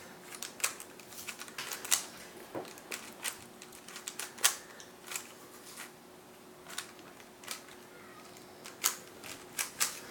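Rubik's Cube being twisted fast by hand: quick, irregular plastic clicks and clacks, several a second, with a short lull about halfway through.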